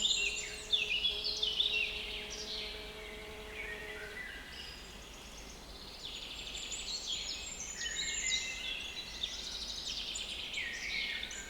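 Several small woodland birds singing at once, with overlapping chirps and trills in two dense bouts, the second starting about six seconds in. A steady low hum runs through the first four seconds and then stops.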